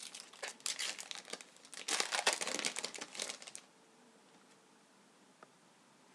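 Wrapper of a hockey card pack crinkling and tearing as it is opened, a dense crackle that stops about three and a half seconds in.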